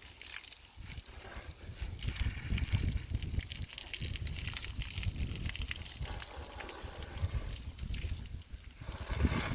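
Cold water spraying from a hose onto a horse: a steady hiss of spray and trickling water, over a low rumble.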